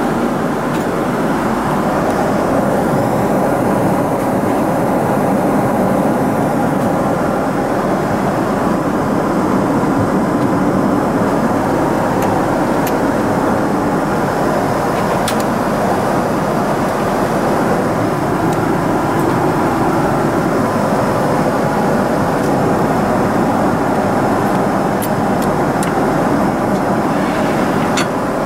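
Steady rush of air and rumble filling a Boeing 777-300ER's cabin, with a few faint clicks from handling things at the seat.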